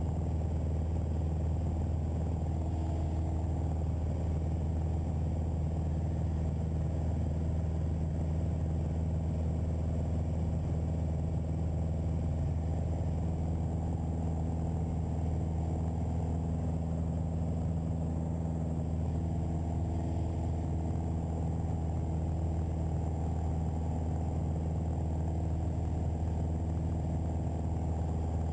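Piper Archer's four-cylinder Lycoming engine and propeller droning steadily in cruise flight, heard from inside the cabin.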